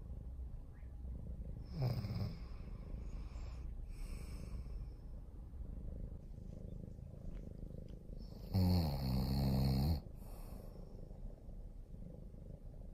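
Grey tabby cat purring steadily, a low rumble close to the microphone. A short low pitched rasp comes about 2 s in, and a louder one lasting over a second about 8.5 s in.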